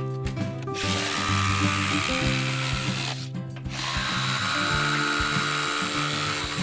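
DeWalt 20V Max compact brushless reciprocating saw (DCS367) cutting into an old wooden fence, its blade buzzing. It stops briefly about three seconds in and then runs again. Background music plays underneath.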